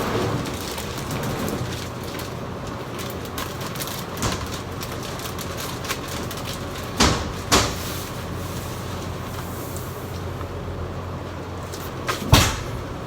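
A steady low mechanical hum, with several sharp knocks or clacks over it: one about four seconds in and two pairs about half a second apart, the last pair loudest near the end.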